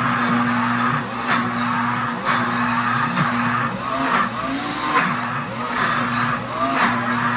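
Pampered Chef Deluxe Cooking Blender running on a nut butter cycle, grinding roasted almonds into almond butter: a steady motor hum whose pitch dips and recovers every second or so as the thick paste churns, with a swishing surge roughly once a second.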